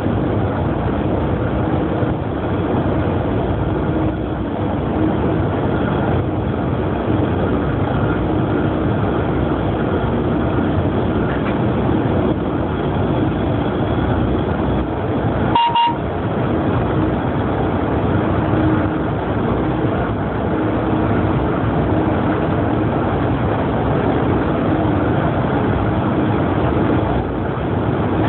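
Steady running noise of a train travelling at high speed, heard from inside the driver's cab. About halfway through, a brief, clear beep-like tone sounds once.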